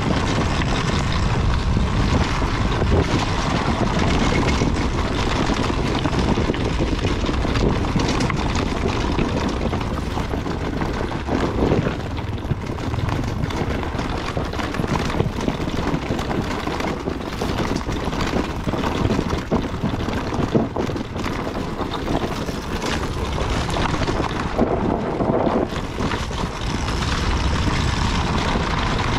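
Dirt bike engine running while riding a rough, stony trail, with frequent short knocks and rattles from the bike going over the rocks.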